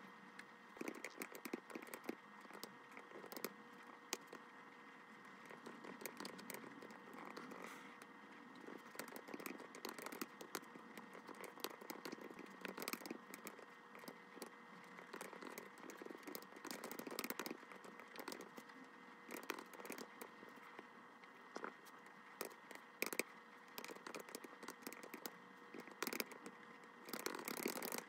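Fingers typing on a computer keyboard: quick, irregular key clicks in short runs with brief pauses.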